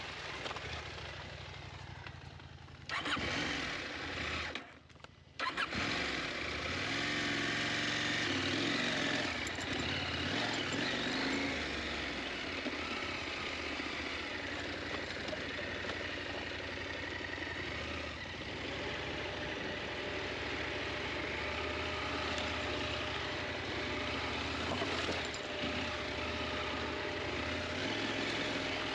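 KTM 890 Adventure's parallel-twin engine running under riding, its revs rising and falling, with a brief drop-out about four to five seconds in.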